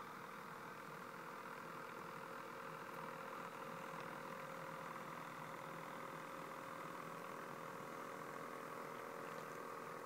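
HO scale model diesel locomotives running past on the track, giving a faint, steady mechanical hum.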